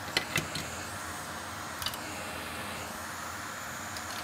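Steady airy hiss of fan or blowing-air noise at a board-repair bench, with three quick sharp clicks in the first second and a double click about two seconds in.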